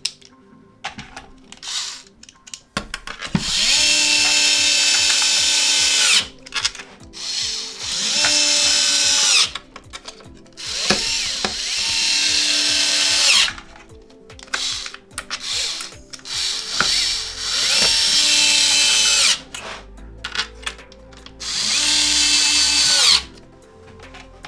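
Electric screwdriver with a T10 Torx bit driving the main body screws into an Xbox One X chassis, in several runs of a few seconds each, each starting with a rising whine that then holds steady, with short handling clicks between screws.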